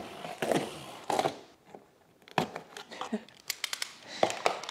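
Box cutter slicing the packing tape along a cardboard box, with a few scraping strokes in the first second, then a scatter of sharp taps and clicks on the cardboard.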